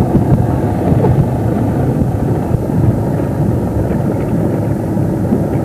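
Steady low motor drone, likely a boat's engine, with wind buffeting the microphone.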